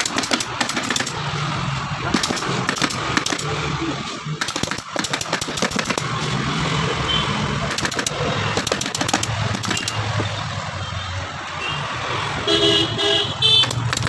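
Pneumatic upholstery staple gun firing in quick runs of sharp shots as fabric is stapled to a sofa's wooden frame, over a steady low hum. A short pitched tone sounds a few times near the end.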